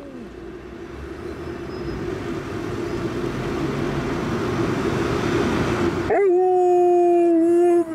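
An Alaskan Malamute's long howl, held on one note and dropping in pitch at the end, starts abruptly about six seconds in and is the loudest sound; it is the dog's excitement at setting off on a walk. Before it, a rushing noise swells steadily louder.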